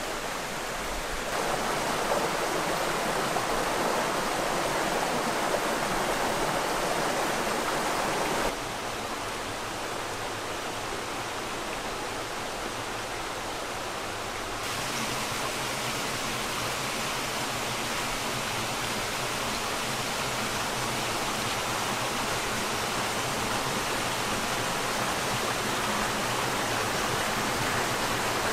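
Small rocky creek running over stones, a steady rush of water. It drops abruptly to a softer rush about a third of the way in, then grows a little louder again about halfway through.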